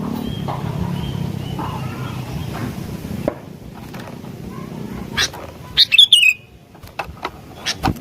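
Sooty-headed bulbul calling. Faint whistled notes sound over a low hum that stops about three seconds in. About six seconds in comes a loud, quick run of chirping notes falling in pitch, and sharp clicks fall here and there in the second half.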